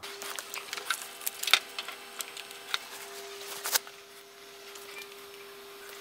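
Scattered light clicks and rustles of hands handling computer gear and cables, the sharpest about one and a half seconds in and again near four seconds. Under them runs a faint steady tone.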